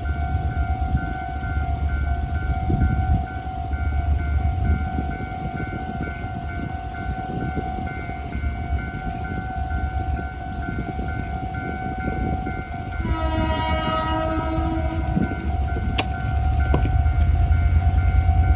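Taiwan Railway diesel locomotive R157 rumbling past with catenary maintenance car CMB75-71, while a level-crossing warning signal rings a steady pulsing tone. The locomotive's horn sounds one chord for about two seconds, two-thirds of the way in, followed by a single sharp click.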